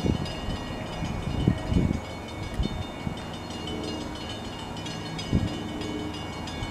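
NJ Transit diesel commuter train, led by an ALP-45DP dual-mode locomotive, pulling away out of sight: a steady low rumble. A few short low thumps come through, near the start, about a second and a half in and two thirds of the way through.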